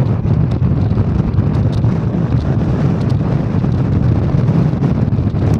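Steady, loud rumble of a vehicle driving, engine and tyre noise heard from inside the cabin, with a few faint ticks.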